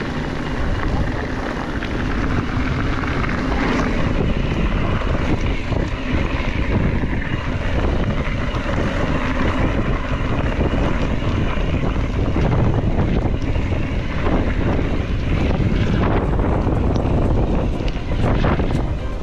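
Wind buffeting the microphone of a mountain bike rider's camera during a descent, over a continuous low rumble, with frequent short knocks and rattles from the bike on rough trail.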